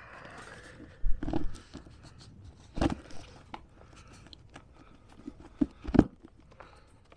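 Close handling sounds of hands working an antenna cable and its connector through a roof mount: scattered light clicks and rubbing, with a few louder knocks, the loudest about six seconds in.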